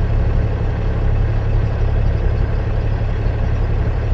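Truck engine idling with a steady low hum.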